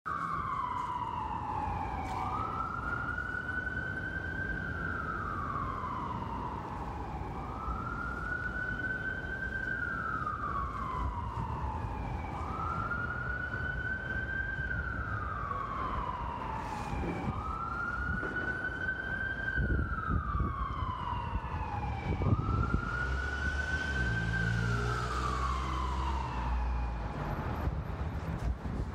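Police car siren on a slow wail: each cycle climbs quickly and then falls slowly, repeating about every five seconds. Under it runs a rumble of city traffic, which gets louder with a heavier engine near the end.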